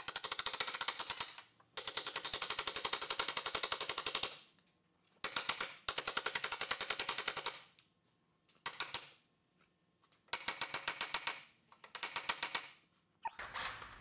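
DeWalt cordless impact wrench hammering in about six short bursts of rapid blows, running in the bolts that hold the new front hub assembly to the steering knuckle.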